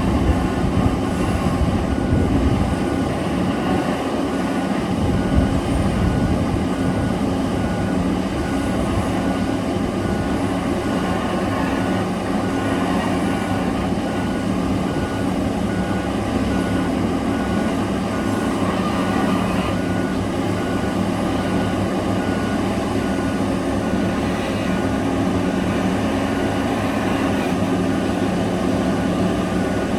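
Heavy diesel engines of a mining excavator and haul truck running steadily under load, with a high beeping alarm repeating about twice a second.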